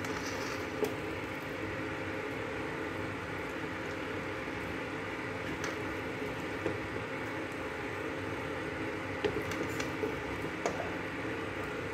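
Wooden spatula scraping and scooping thick, sticky halwa in a pan, with a few light taps against the pan, over a steady background hum.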